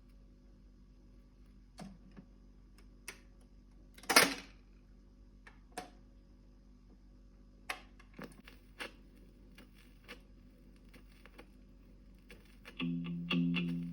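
Dansette Conquest Auto record player between tracks: scattered clicks and pops over a steady low hum, with one loud click about four seconds in. Guitar music starts near the end.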